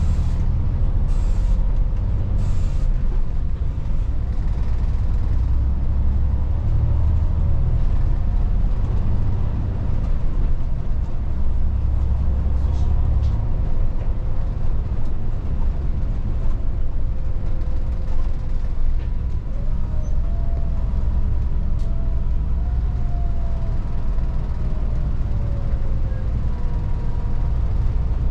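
Volvo 8900 city bus under way, its diesel engine and drivetrain making a steady low drone. There are two short air hisses about a second and two and a half seconds in, and a faint whine rises and falls in the second half.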